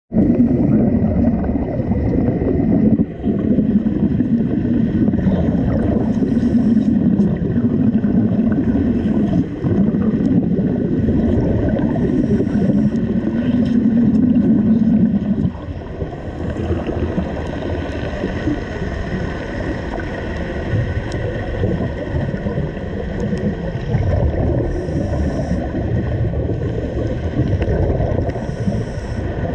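Underwater wet arc welding heard through the water: a loud, dense, steady sound that drops off about fifteen seconds in, leaving a lower rumble of water and bubbles.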